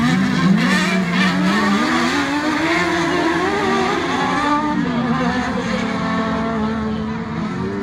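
Autocross race cars' engines running hard around a dirt circuit, several engine notes overlapping, their pitch rising and falling with throttle and gear changes.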